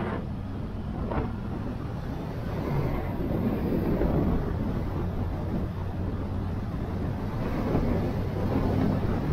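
Motorcycle engine running steadily on the move, with wind rushing over the microphone, the wind noise growing a little louder about three seconds in.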